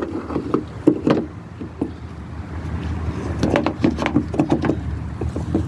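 Light clicks, taps and knocks of a plastic replacement door handle being worked and hooked into its opening in a car door. They come scattered at first and then in a dense run from about halfway through, over a steady low rumble.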